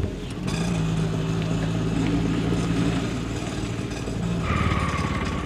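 Auto-rickshaw engine idling steadily, then revving up about four and a half seconds in as the three-wheeler pulls away.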